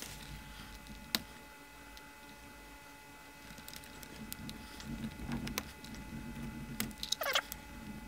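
Quiet handling noises of a vintage transistor radio being reassembled by hand: one sharp click about a second in, then small scattered clicks and a soft rubbing of parts over the last few seconds, with a short scrape near the end.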